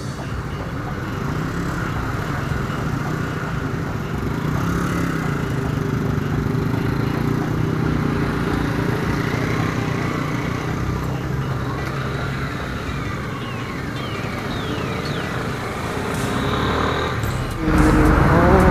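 Honda Sonic 150R's single-cylinder four-stroke engine running steadily at low speed in slow, queueing traffic, with other motorcycles running around it. About a second before the end the sound jumps louder with a rushing noise as the bike moves at road speed.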